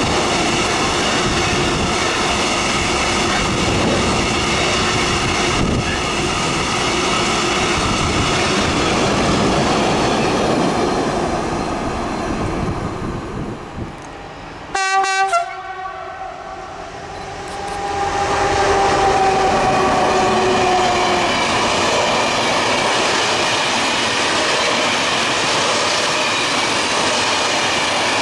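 Freight wagons rolling steadily past with wheel clatter. Near the middle, after a quieter spell, a pair of SNCF BB67400 diesel locomotives sounds a short horn blast. A droning tone then dips slightly in pitch as the locomotives go by, followed by the steady rolling of their Corail passenger coaches.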